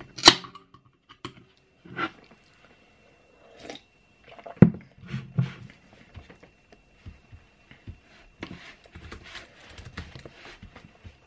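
Clicks and knocks of a drink can being handled and set down on a desk, with a heavier knock about four and a half seconds in. Near the end, rapid light clicking of typing on a laptop keyboard. A faint steady high whine runs underneath.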